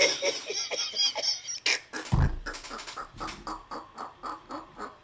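Cartoon soundtrack: a quick run of short, evenly spaced sounds, about three a second, with a low thud about two seconds in.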